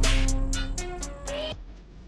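Background hip-hop style music with drum hits and sustained notes, cutting off suddenly about a second and a half in, leaving faint room noise.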